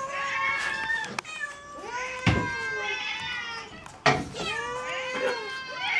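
Several hungry cats meowing at once in overlapping long calls, begging at feeding time. A few sharp knocks cut through, the loudest about two and four seconds in.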